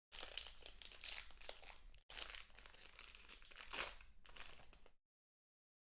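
Plastic wrapping crinkling and tearing as a sealed trading-card box is opened. It starts and stops abruptly, with a brief break about two seconds in.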